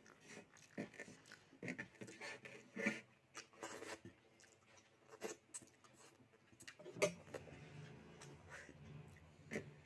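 Close-up eating sounds: soft chewing and wet mouth clicks with small clicks of food being handled, scattered and irregular. About seven seconds in a low steady hum comes in underneath.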